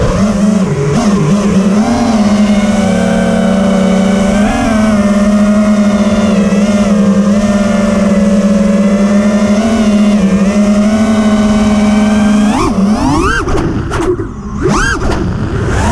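FPV quadcopter's brushless motors and propellers whining at a fairly steady pitch. About three-quarters of the way in, the whine starts rising and falling sharply as the throttle is punched and cut.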